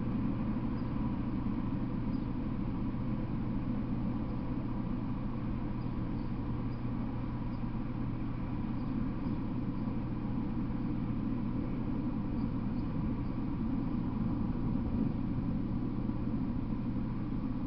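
Steady low hum and hiss with no distinct events; no train passes.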